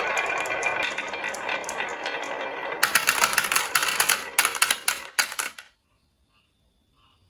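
Many marbles rolling and rattling down a wooden HABA marble-run slope, then a run of sharp clacks as they drop and knock together. It stops suddenly about five and a half seconds in.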